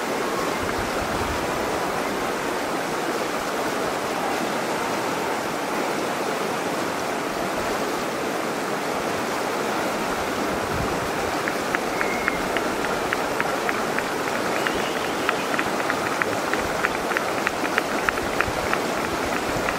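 Mountain river water rushing over shallow rapids, a steady wash of noise. From about halfway through, a run of light, irregular clicks or taps sounds over the water.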